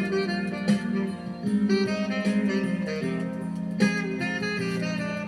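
Instrumental break of a soft pop ballad backing track, led by guitar, with no singing.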